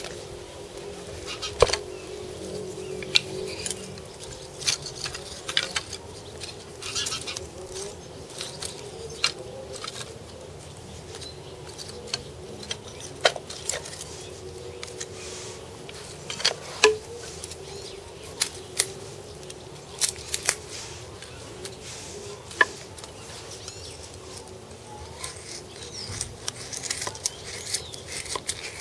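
Bushcraft knife and split wooden kindling sticks being handled, giving scattered sharp clicks and short scrapes of blade and wood. Near the end a quicker run of scraping comes as the blade carves a stick.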